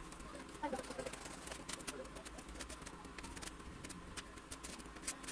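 Faint cooing of a dove, with light scattered clicks and rustles.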